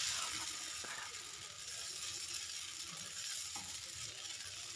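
Dosa batter sizzling with a steady, faint hiss on a hot tawa as a ladle spreads it in circles. A couple of soft ladle scrapes or taps come through, about a second in and again past three seconds.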